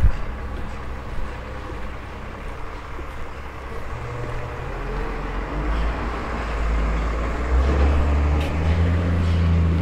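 A motor vehicle approaching and passing on the street, its low engine hum growing louder through the second half and loudest near the end.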